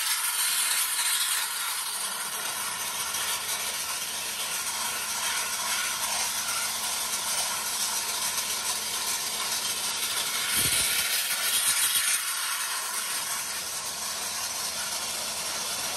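Aquablaster wet abrasive blaster jet, sand and water, spraying against a steel truck wheel to strip the rust: a steady loud hiss, a little noisy and splashy.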